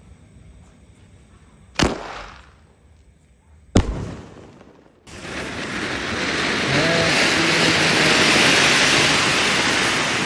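Diwali firecrackers: two sharp bangs about two seconds apart, then from about five seconds in a loud, steady hiss that lasts several seconds.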